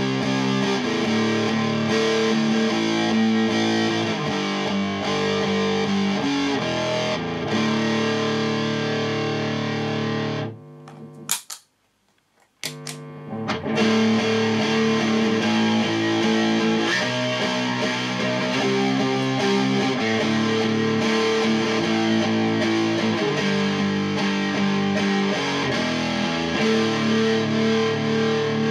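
Looped electric guitar riff played through fuzz distortion: first through an Electro-Harmonix Big Muff, then, after a brief drop-out with a couple of clicks about eleven seconds in, through the Tone Electronix Animalizzer, an expanded Muff-style fuzz pedal. The guitar is a Squier Telecaster into an amp's clean channel, so the fuzz comes from the pedals.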